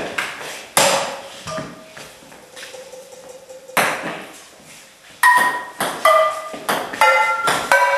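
A table tennis ball struck back and forth with frying pans, the hits giving sharp metallic pings that ring on briefly, in a rally of about eight strikes with a lull in the middle.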